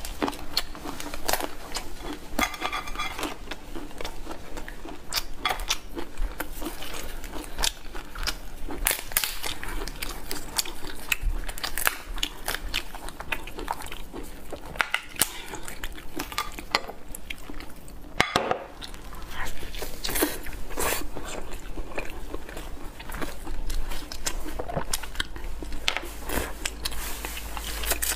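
Cooked lobster shell being cracked and pulled apart by hand, making an irregular run of sharp crackles and snaps as the meat is torn out, with close-up chewing.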